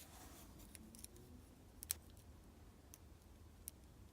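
Faint, scattered clicks of a lock pick working the pins inside a Lockwood lock's keyway under light tension, with a slightly louder click about two seconds in.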